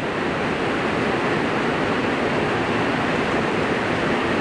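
Heavy rain falling on a pond's surface, a steady even hiss.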